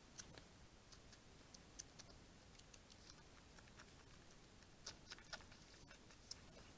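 Near silence with faint hiss and scattered soft ticks at irregular intervals, a few slightly stronger about five seconds in.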